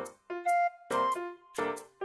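Cute background music: a bouncy keyboard melody over a steady beat of about two hits a second.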